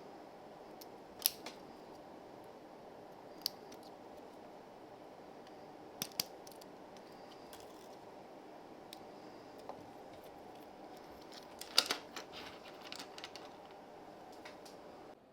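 Sharp, scattered clicks of hard plastic parts being handled, over a steady hum. The clicks come singly a few seconds apart, then in a cluster near the end.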